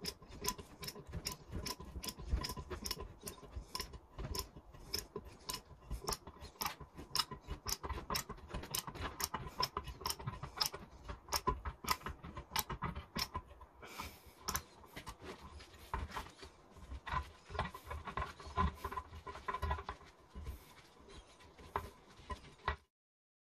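Hand tap in a T-handle tap wrench cutting threads into an aluminium plate: a steady run of small metallic clicks and scrapes, a few a second, as the wrench is worked back and forth. The sound stops abruptly near the end.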